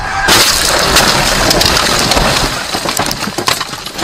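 Car crash heard from inside the cabin: a sudden loud impact shortly after the start, then a long rush of crashing and scraping as the car ploughs into roadside bushes and branches. The noise dies down after a couple of seconds, with scattered cracks and snaps.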